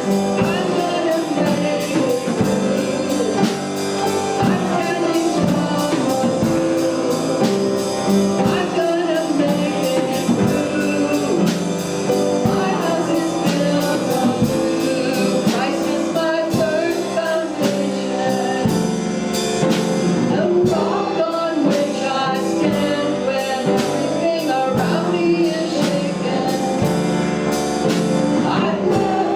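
Worship song sung with a live band, voices carrying the melody over a steady drum beat.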